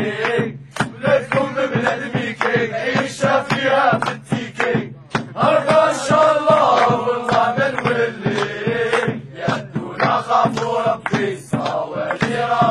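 Male voices chanting a song in unison over a fast, steady percussive beat.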